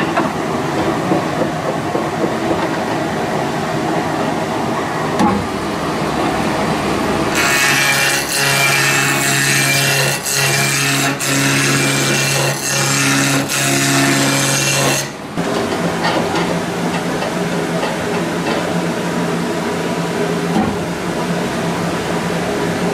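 Wood lathe running with a wooden salt-mill body spinning on it. From about seven seconds in, a tool is held to the spinning wood, adding a loud hiss that breaks off briefly about once a second. At about fifteen seconds the tool comes away and only the lathe's steadier running is left.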